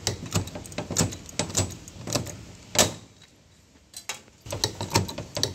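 Hand pop-rivet gun setting a blind rivet through a steel latch bracket into a truck box door: a quick series of clicks as the handles are squeezed, then one loud sharp crack about halfway through as the rivet's mandrel snaps off. After a short pause come more small metallic clicks and clinks.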